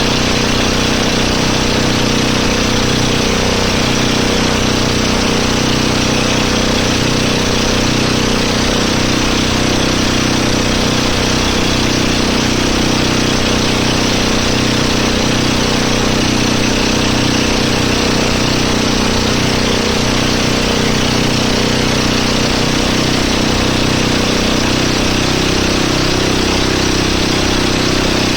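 A motorboat engine running steadily at a constant speed for the whole stretch, with a continuous hiss of rushing water or wind over it.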